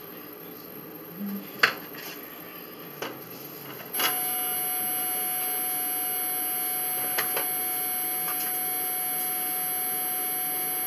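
A steady electrical hum with a fixed tone switches on abruptly about four seconds in and runs on unchanged. Before it come a few sharp clicks.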